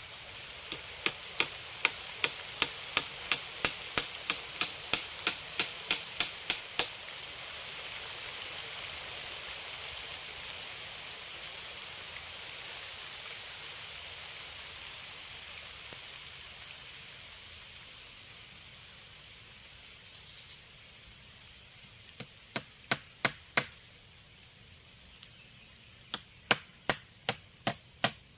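Runs of sharp, evenly spaced knocks, about three a second, like rapid chopping or hammering strokes on wood. Between the runs a hissing rush swells and fades.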